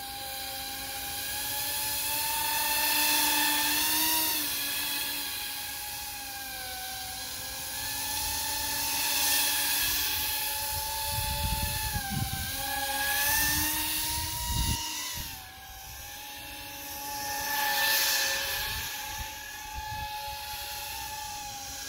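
The twin brushless motors and propellers of a 3D-printed RC Avatar Scorpion gunship in flight: a steady high whine whose pitch rises and falls with the throttle, growing louder and fainter as the model moves about. Wind buffets the microphone with low rumbles about halfway through.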